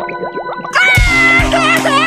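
Cartoon character's high wailing cry that starts about three-quarters of a second in, holds briefly, then breaks into wavering sobs. Background music with a steady bass beat plays under it.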